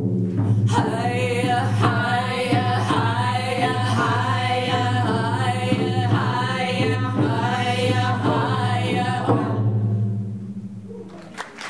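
A group of women singing a chant together over a steady beat on handheld frame drums. The voices stop about three-quarters of the way through, and the drumming dies away shortly before the end.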